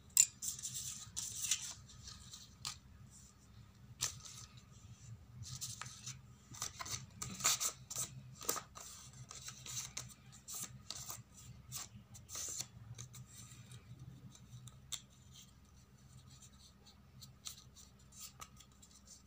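Crinkling and rustling of thin craft paper being folded and creased by hand, in short uneven bursts that thin out over the last few seconds, over a steady low hum.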